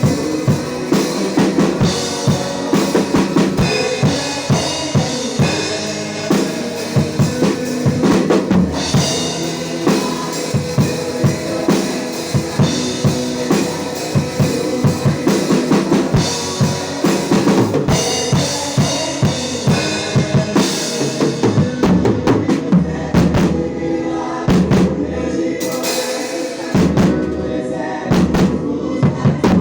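A band playing a worship song, with the drum kit to the fore: a steady bass-drum and snare beat over sustained instruments. The cymbals drop out for a few seconds about two-thirds of the way through, then come back.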